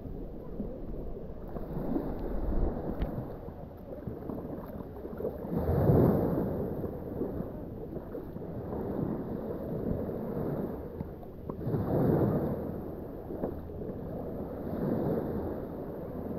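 Small waves washing up and breaking on a sand-and-fine-pebble shore, swelling every few seconds, with low wind rumble on the microphone during the first couple of seconds.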